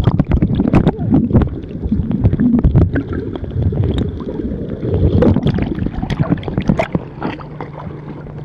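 Muffled water sloshing and bubbling around a camera held underwater, stirred by a snorkeler's swimming, with many irregular crackles and clicks. A steady low hum comes in near the end.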